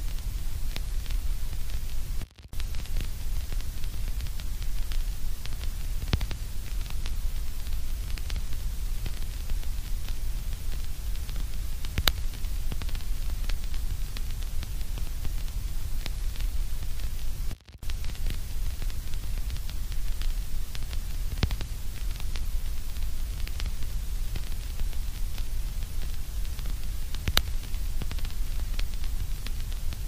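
Steady white-noise hiss with a heavy low rumble and scattered faint crackles, cutting out briefly twice: a couple of seconds in and just past halfway.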